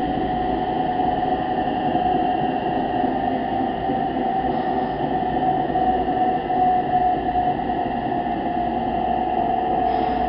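Washing machine running: a steady mechanical rumble with a constant whine held on one pitch throughout.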